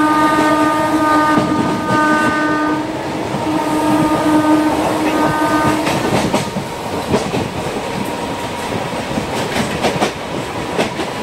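Passenger train's horn sounding one long blast and then two shorter ones, ending about six seconds in. After it, the train's steady running rumble and the clicks of its wheels over rail joints.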